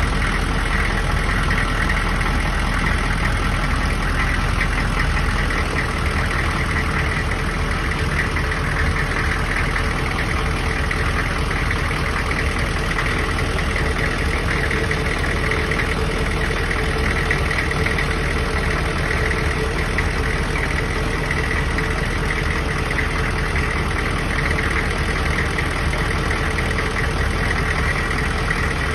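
Steady mechanical drone with a faint, constant high whine above it, holding an even level with no breaks.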